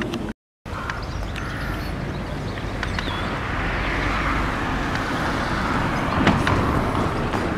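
A car passing on a road close by, its engine and tyre noise swelling to a peak about six seconds in and then easing, over a steady low outdoor rumble. The sound cuts out completely for a moment about half a second in.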